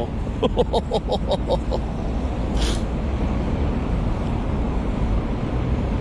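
Steady low rumble of vehicle noise. In the first two seconds a quick run of about eight short pitched sounds rises over it, and a brief hiss follows a little later.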